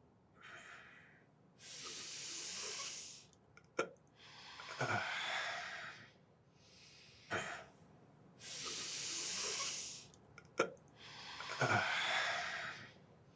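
A person taking two slow, deep breaths, each a long hissing inhale followed by a long exhale, with small mouth clicks between them.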